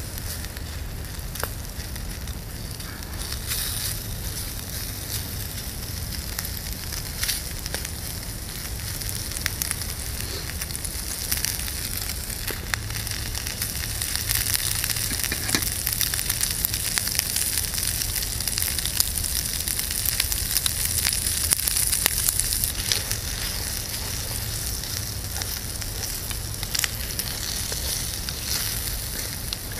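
Bacon sizzling in a Toaks titanium frying pan over a wood-burning gasifier stove: a steady high hiss with scattered small pops. It grows a little louder about halfway through, then eases back.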